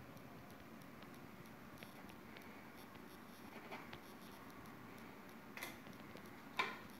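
Faint scratchy strokes of a paintbrush on canvas over a low steady hiss, with a few short knocks, the sharpest near the end.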